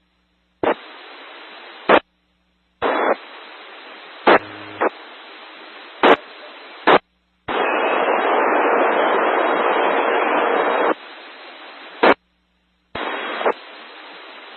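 Amateur radio repeater audio with no voice: several short keyups, each a second or few of hiss that ends in a brief squelch burst, separated by moments of dead silence. About halfway through comes a louder rush of static lasting roughly three seconds, from a noisy carrier.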